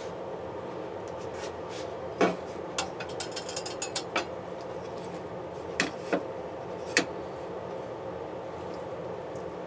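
Frying pan of cooking oil heating on the stove: irregular sharp ticks and clicks, with a quick run of them in the middle, over a steady low hum.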